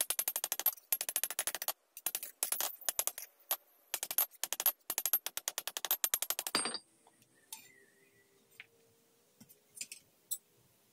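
Hand hammer striking a steel sword blade, forged from an old leaf spring, on an anvil: quick runs of several ringing blows a second with short pauses between them. The blows stop about two-thirds of the way through, followed by a few faint clinks of metal being handled.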